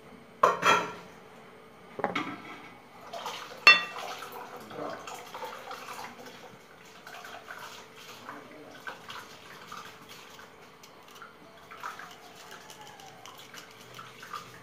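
A small knife slicing crisp ivy gourd by hand, with the pieces and blade tapping on a steel plate in small irregular clicks. In the first few seconds there are a few louder knocks, including one sharp, ringing metallic clink.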